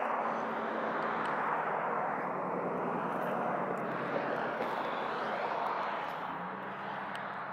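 Road traffic going by: a steady rush of tyre and engine noise from passing vehicles, swelling and easing a little.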